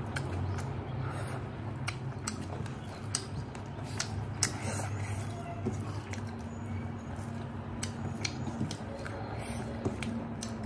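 Close-up eating sounds: chewing and mouth smacks, and fingers mixing rice and curry on a metal plate, heard as scattered sharp clicks over a steady low hum.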